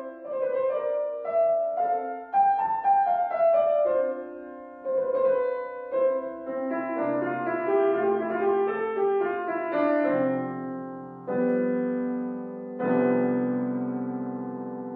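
Solo piano background music, a gentle piece. A melody of single notes runs through the first part, then struck chords with a low bass ring out and slowly fade in the last few seconds.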